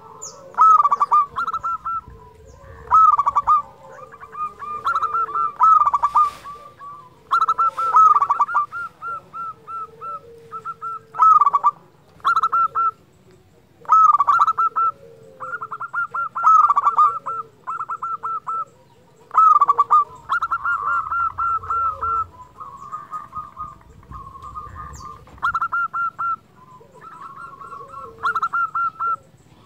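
Zebra dove (perkutut) singing its repeated song: short phrases of rapid, stuttering cooing notes, a couple of seconds apart. Around two-thirds of the way through there is a longer, denser run.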